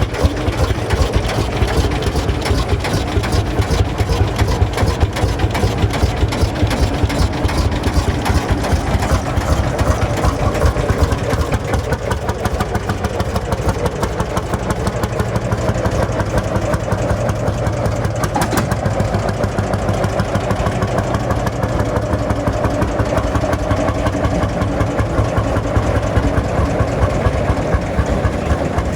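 Single-cylinder two-stroke hot-bulb tractor engine of the Lanz Bulldog type, idling with a steady, even beat.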